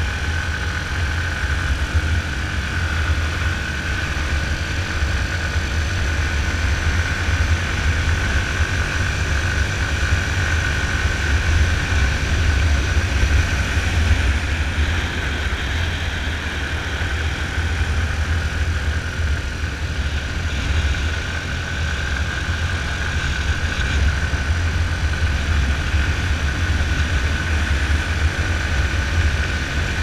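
Yamaha Fazer 250 motorcycle's single-cylinder four-stroke engine running steadily at road speed, mixed with wind and road noise. The sound holds even throughout, with no revving up or down.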